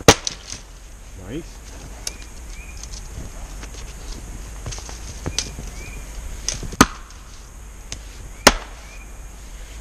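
A splitting axe chopping into a big, knotty firewood round. There are three hard chops, one at the start and two near the end about a second and a half apart, with a few lighter knocks between.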